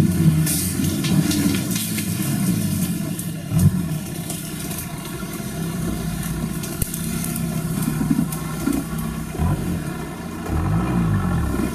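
Off-road 4x4's engine running and revving, its pitch held steady for a while and then rising and falling several times near the end.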